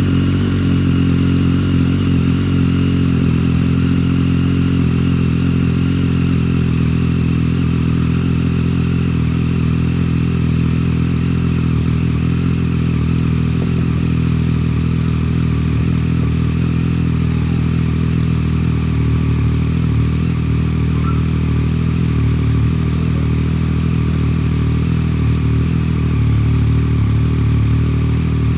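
Triumph Street Triple 765 R's three-cylinder engine idling steadily through a freshly fitted SC-Project SCR-1 carbon exhaust, baffle in.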